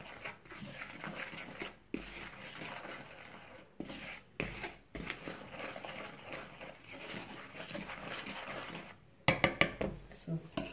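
Wire whisk stirring dry flour in a plastic bowl: a soft, scratchy swishing with brief pauses. Near the end come a few sharp taps, the loudest sounds.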